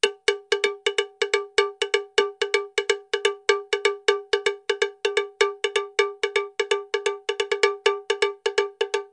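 Background music: a cowbell-like metallic tone struck over and over at one pitch, about five strikes a second in a slightly uneven rhythm.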